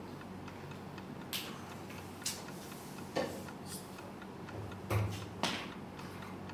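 Faint steady ticking over a low hum, with a few irregular soft knocks and rustles from students moving at their wooden desks.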